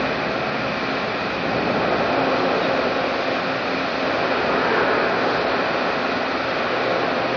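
Steady industrial din of steel pipe mill machinery running in a large hall, a continuous noise with a faint high whine and a low hum through it.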